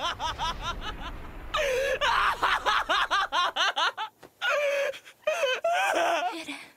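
Eren Yeager laughing, from the anime's voice acting: quick repeated short laughs at about five a second, then louder, longer bursts of laughter from about a second and a half in.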